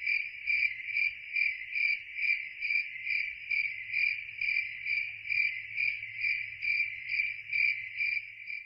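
Crickets chirping in a steady, even rhythm, a little over two chirps a second.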